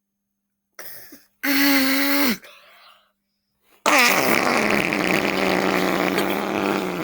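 Two imitation fart sounds made by a boy: a buzzy one about a second long, then after a short pause a longer one of about three seconds, each sinking in pitch as it dies away.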